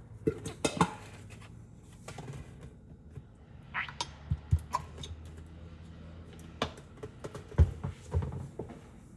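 Kitchen handling sounds: scattered knocks and clinks of dishes, containers and utensils being picked up and set down. The loudest knock comes about two-thirds of the way through.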